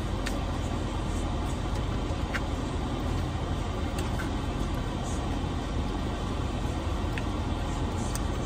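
Steady low rumble and hiss inside a parked car, with a few faint clicks of a plastic fork against a foam takeout box.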